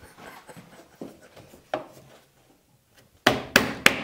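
Scattered light knocks and clatter, then three loud, sharp knocks in quick succession near the end.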